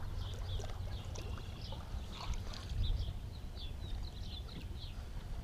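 Small waves lapping against a fishing boat's hull, with a steady low wind rumble and many faint, short high chirps scattered throughout.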